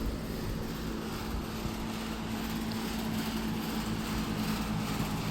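A steady low machine hum that holds the same pitch throughout, over a low rumble.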